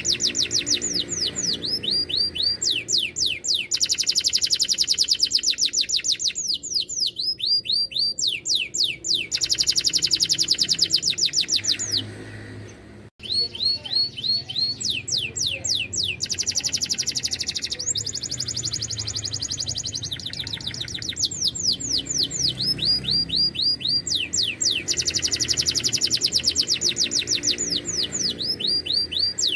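Domestic canary singing: long runs of fast, evenly repeated notes and quick falling whistled sweeps, with a brief pause a little before the middle.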